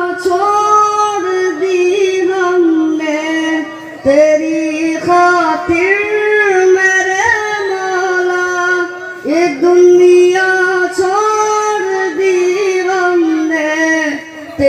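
A boy singing an Urdu ghazal with no instruments, in a high voice: long ornamented notes that bend and waver, with short breaks for breath twice, amplified through a microphone.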